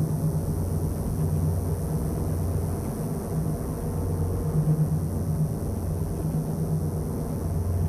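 Low electronic drone from a live experimental electronics set: two deep sustained tones that swell and ease, with a steady hiss above them.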